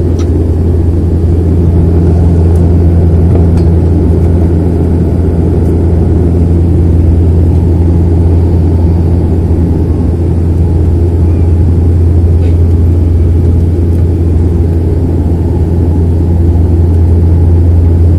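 Bombardier Dash 8 Q400 turboprop engines and propellers heard inside the passenger cabin in the climb after take-off: a loud, steady drone with a strong low propeller hum.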